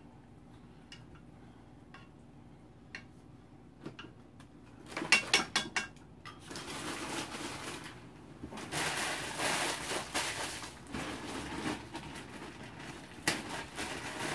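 Chopsticks and tableware clattering against a pan and bowls: scattered light clicks, then a quick run of sharp clicks about five seconds in, followed by several stretches of noisy handling and one more click near the end.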